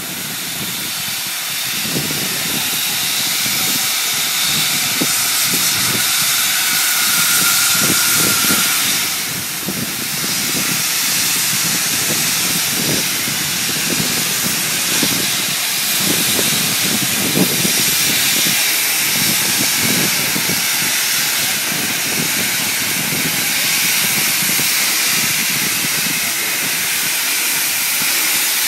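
NSW P-class (32 class) steam locomotive 3237 letting off a loud, steady hiss of steam from its open cylinder drain cocks as it starts slowly away, with irregular low beats underneath.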